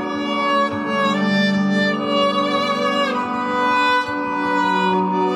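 Viola played with a loop pedal: slow, sustained bowed notes over looped layers of held strings, like a small string ensemble. A low held note stays under the upper line, which moves to new pitches about a second in and again around three seconds.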